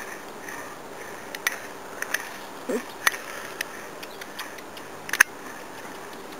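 Scattered sharp clicks and taps over a quiet background, the loudest about five seconds in. Around two and a half seconds in comes one short, low whine from a whippet puppy.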